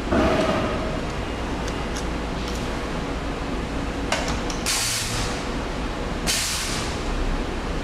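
Hot stamping press letting out two short hisses of air, about four and a half and six seconds in, over a steady machine hum, with a clunk at the very start.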